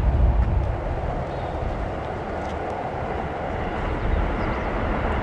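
Boeing 777-200LR on final approach, its GE90 jet engines heard as a steady rumble without a clear tone, a little louder in the first second.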